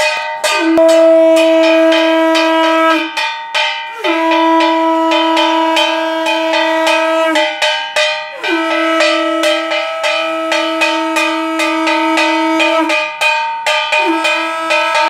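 A bell-metal kansar gong beaten fast with a stick, over long blasts of a conch shell (shankha), about five blasts, each starting with a short drop in pitch and broken by pauses for breath. Ritual puja sounds welcoming the Gopal idol as it is seated on its throne.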